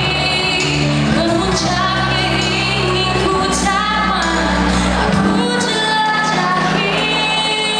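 A woman sings a Malay song solo into a microphone over instrumental accompaniment, holding long notes. The low bass of the accompaniment thins out about five seconds in.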